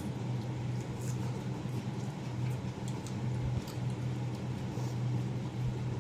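Steady low machine hum with faint, scattered small clicks and taps of eating rice and curry by hand from a plate.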